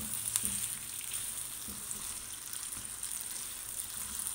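Chicken and potato chunks sizzling steadily in hot oil in a wok, stirred with a spatula that knocks and scrapes lightly against the pan now and then.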